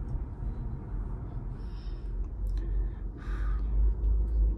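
Low, uneven rumble inside a small enclosed tram cabin riding down the cable, with two soft breathy sounds and a few faint clicks.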